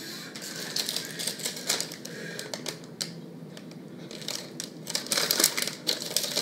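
Plastic cookie wrapper crinkling as it is handled, a quick run of crackles. It comes in two spells, and the louder one is near the end.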